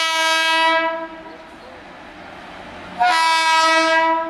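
Electric locomotive horn sounding two long blasts: the first ends about a second in, the second starts about three seconds in and stops abruptly. Between them, the low steady noise of the approaching freight train.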